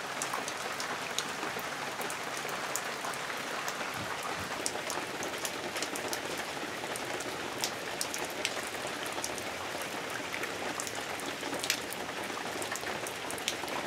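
Steady rain falling on wet paving stones and fallen leaves: an even hiss with many separate drops striking close by.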